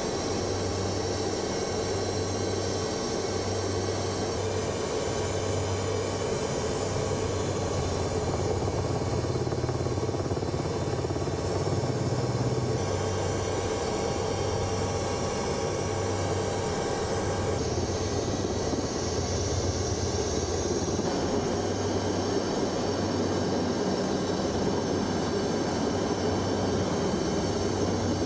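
Helicopter engine and rotor running steadily in flight, heard from inside the cabin as a continuous drone.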